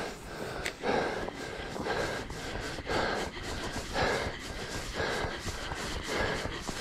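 A man panting hard while hurrying along a loose shale-and-gravel lakeshore, with breaths coming about once or twice a second. His footsteps crunch on the stones between the breaths.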